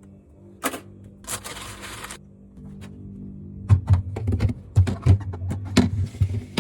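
Knocks, clicks and clatter of hard items being handled, as when fridge shelves, drawers and containers are moved. A brief hiss comes about one and a half seconds in, and a run of quick knocks fills the second half. Background music plays underneath.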